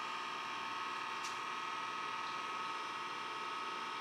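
A steady electrical hum with a high whining tone, and one faint click about a second in.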